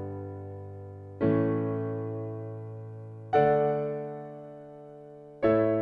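Background music: slow electric piano chords, a new chord struck about every two seconds and left to fade.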